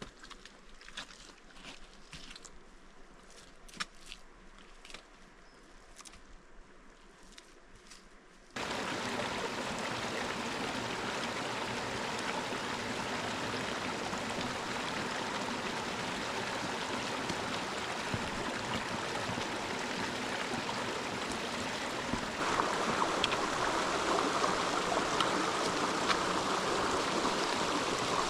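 Rushing mountain stream water, a steady even noise that starts abruptly after a quieter stretch of faint clicks and grows louder near the end.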